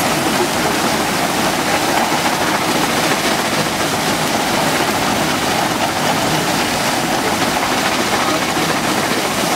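Belt-driven threshing machine running while oat bundles are fed into it: a loud, steady rushing noise without a break.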